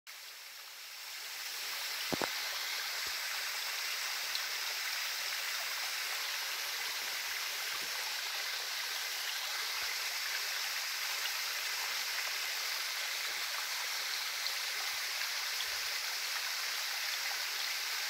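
Small waterfall cascading down a rock face: a steady rush of splashing water that comes up over the first second or two and then holds even. A brief click about two seconds in.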